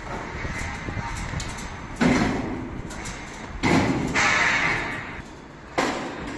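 Galvanized steel calf handler crate clanking and rattling as it is tipped up on its frame: a loud metal clank about two seconds in and another a little before four seconds, each trailing off in a ringing rattle, then a shorter clank near the end.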